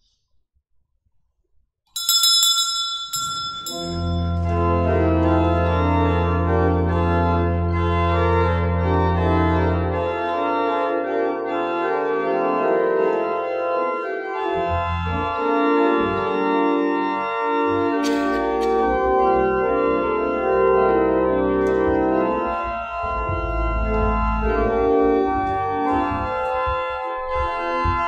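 Church organ playing sustained full chords, opening with a deep pedal note held for several seconds before the music moves on. The organ comes in about two seconds in, straight after a short bright ringing.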